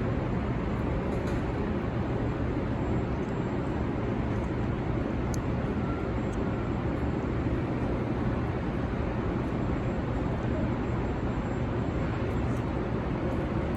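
Steady low rumble of vehicle engines and street traffic.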